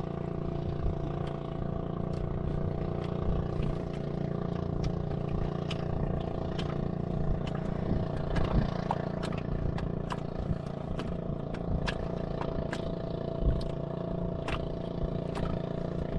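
An engine running steadily at an even pitch, with scattered sharp clicks and knocks over it.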